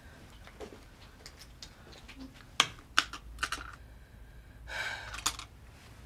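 Wall-mounted rotary-dial telephone being used: a few sharp plastic clicks as the handset is taken up and the dial is worked, then a short whirr of the dial running back, about five seconds in.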